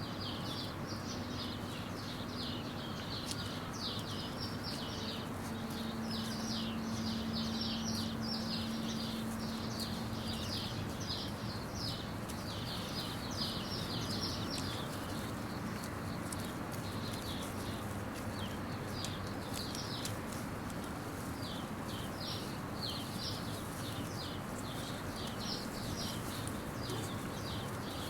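High, rapid chirps in short runs of a few strokes, repeating steadily throughout over a steady background hiss, with a faint low hum for the first few seconds.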